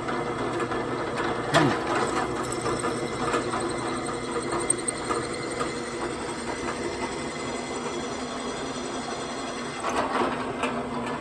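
Handheld electric drill running steadily as it drills out a hole in the aluminum blower housing to tap size for a Heli-Coil thread insert; it stops near the end.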